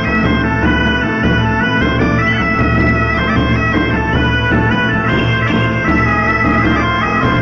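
Bagpipe music: a melody stepping from note to note over a steady, unchanging drone.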